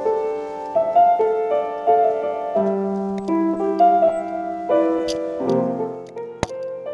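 Slow keyboard music: held chords under a simple melody in the middle range, the notes changing about once a second. A sharp knock sounds about six and a half seconds in.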